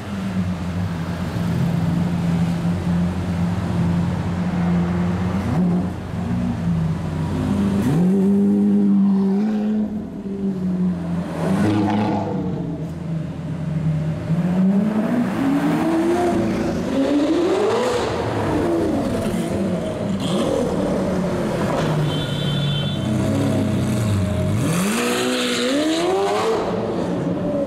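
Supercar engines running in street traffic: a steady engine drone, with several rising revs as cars accelerate away, the last and sharpest near the end.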